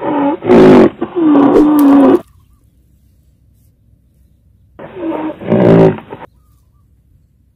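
Recorded rhinoceros call played as a sound effect: a loud bellowing call with wavering pitch that cuts off about two seconds in, then a second shorter call of the same kind about five seconds in.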